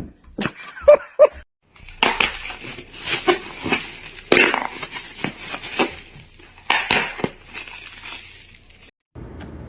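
Crunching, clattering knocks: a few sharp knocks, then a long run of clattering impacts that cuts off abruptly near the end.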